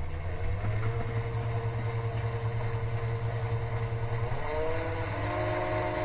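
7x14 mini lathe running: a steady motor whine that glides up in pitch a little past four seconds in and holds at the higher pitch.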